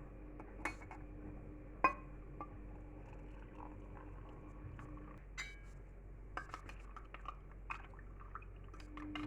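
Light clinks and taps of glassware and dishes being handled, over a steady low hum that stops about five seconds in.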